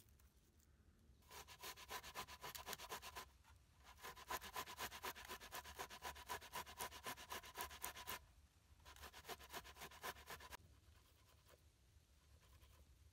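Ripe tomatoes being grated on a stainless-steel box grater: quick rasping strokes, several a second, in three runs, the middle one the longest.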